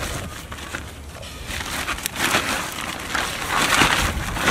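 Woven plastic sack rustling and crinkling as it is handled, with quick crackles, growing louder in the second half.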